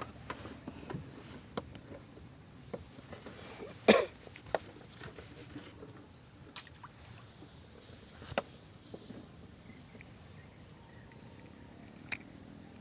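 A few scattered sharp clicks and knocks, the loudest about four seconds in, over a faint steady outdoor background.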